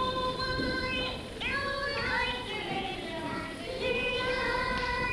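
Children's voices singing in long held notes of about a second each, sliding up into each note.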